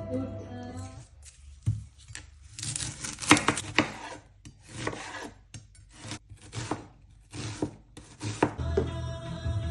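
Chef's knife slicing a halved onion on a wooden chopping board: a series of short crisp cuts, each ending in a knock of the blade on the board, at an uneven pace of one or two a second.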